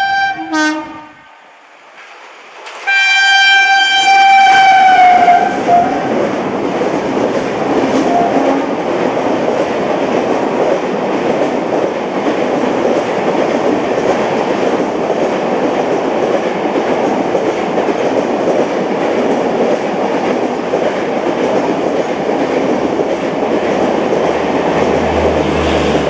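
WCAM-3 electric locomotive horn: a short blast, then after about two seconds a longer one whose pitch drops as it ends. Then a non-stop express train passing at speed, a steady loud rush of coaches with wheel clatter.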